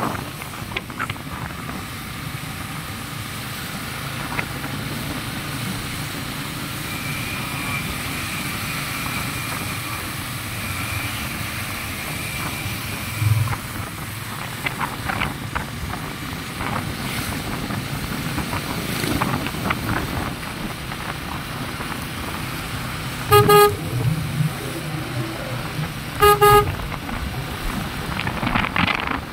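Yamaha motorcycle riding along a wet road, with steady wind and engine noise. Near the end a horn gives two short beeps about three seconds apart.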